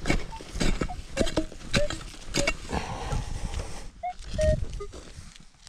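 A long-handled metal digging tool stabbing into soil about twice a second, then a scraping rush of dirt. Short beeps from a metal detector follow near the end.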